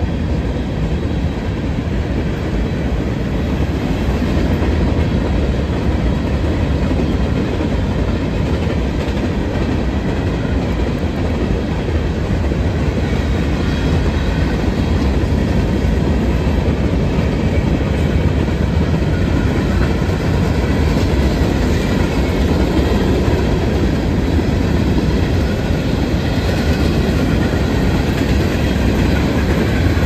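Freight cars of a loaded rock train rolling past: a steady rumble of steel wheels on the rails, which grows a little louder about four seconds in.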